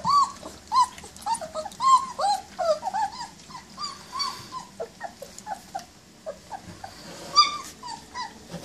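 A litter of 20-day-old German Shepherd puppies whimpering and squeaking: a quick run of short calls that rise and fall in pitch, thinning out after about four seconds, with one louder squeal near the end.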